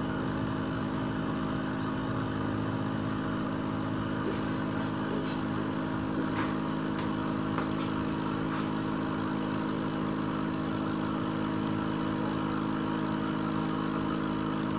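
Aquarium air pump humming steadily, with air bubbling up through the tank water.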